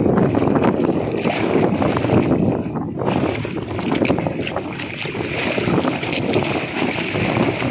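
Strong wind buffeting the microphone over choppy sea washing against a small wooden outrigger boat, a rough, gusting rush that grows brighter about three seconds in.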